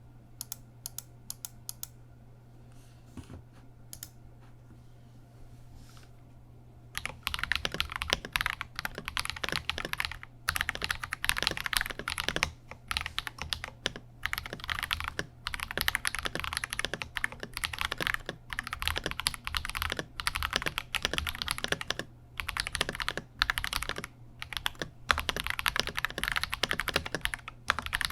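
Typing on a KBD67 Lite R3 mechanical keyboard with unlubed Akko CS Radiant Red linear switches, which have a higher-pitched, clacky sound. A few scattered keystrokes come first, then fast continuous typing starts about seven seconds in, with brief pauses, over a low steady hum.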